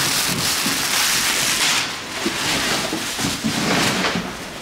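Clear plastic protective wrap rustling and crinkling as it is handled.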